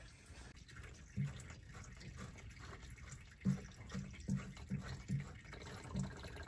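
Diesel fuel draining from a John Deere tractor's fuel filter into a plastic gas can: a faint trickle with a run of irregular drips and small splashes.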